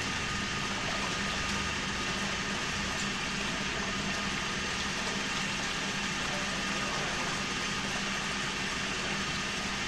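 Steady whirring of a small electric motor with a constant hum, unchanging throughout.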